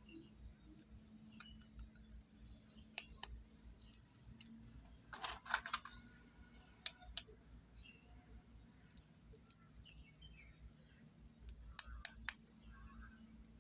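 Sharp clicks and taps of small plastic toy cosmetic pieces being handled, in scattered groups, with a brief rustling clatter about five seconds in. A faint steady hum lies underneath.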